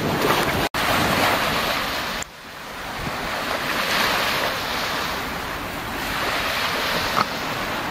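Small waves breaking and washing up a pebbly shore, with wind buffeting the microphone. The sound cuts out for an instant under a second in, then drops sharply about two seconds in and builds back up.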